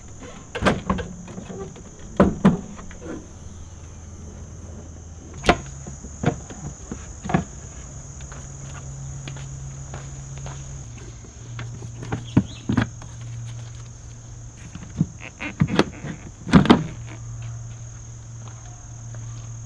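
A scattered series of sharp clicks and knocks from car parts being handled as the hood is opened and engine-bay parts are removed, over a steady high trill of crickets.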